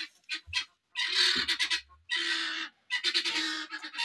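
Farmyard poultry calling: a run of loud, harsh calls, about four in a row, each under a second long and coming roughly once a second.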